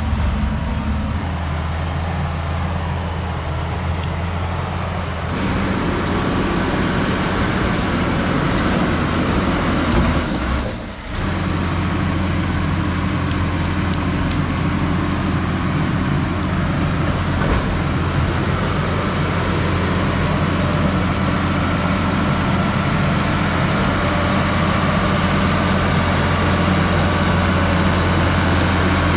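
Case crawler dozer's diesel engine running steadily under load while the machine works the trail. The sound gets fuller about five seconds in and dips briefly around eleven seconds in.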